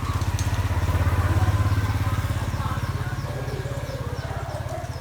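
A motorcycle engine running as it passes by, loudest about a second and a half in and then slowly fading. Faint short bird chirps sound over it.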